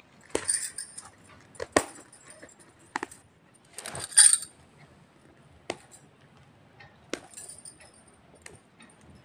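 A stone- and bead-embellished blouse being handled: the fabric rustles and the stones and beads give scattered light clicks and clinks, about one a second, loudest about four seconds in.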